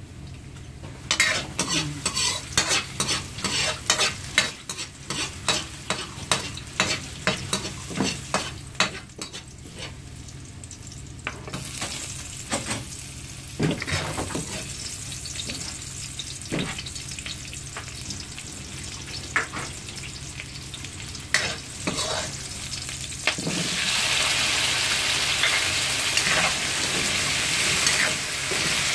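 Garlic sizzling in hot oil in a metal wok while a metal spatula scrapes and taps the pan in quick, repeated strokes. The sizzle rises about twelve seconds in, and grows much louder from about twenty-three seconds in, when diced potatoes are frying in the pan.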